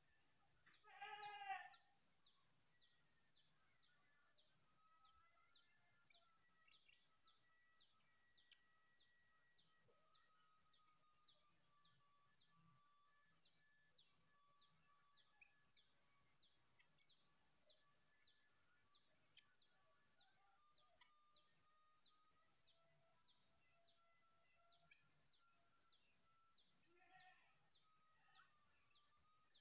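Helmeted guineafowl giving a short, harsh rattling call about a second in, and again more softly near the end. Under it, a faint, regular high chirping repeats about twice a second.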